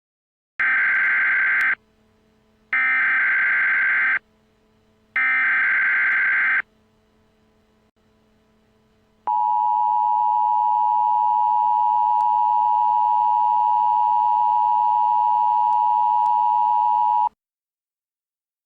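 Emergency Alert System tones: three short bursts of the SAME data header, about a second each with brief gaps, then the steady two-tone EAS attention signal for about eight seconds, which cuts off suddenly. The sequence marks the start of a new emergency alert broadcast.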